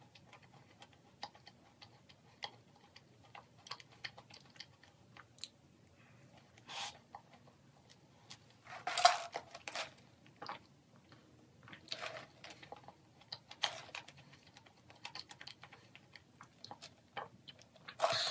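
Close-up mouth sounds of eating and drinking: faint clicking and crackling from chewing a shell-shaped macaron, then sips through a straw from a plastic cup, with a few louder short sounds, the loudest about nine seconds in.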